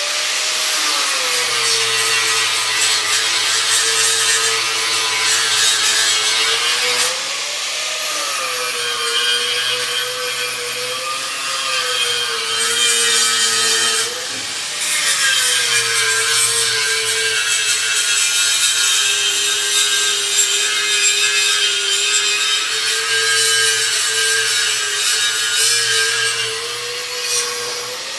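An electric angle grinder running under load against metal, its motor pitch rising briefly each time it is eased off the work, about every six or seven seconds.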